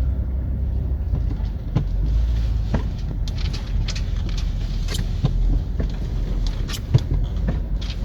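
Minivan driving slowly over a rough, icy trail: a steady low rumble of engine and tyres, with scattered knocks and rattles as it goes over bumps.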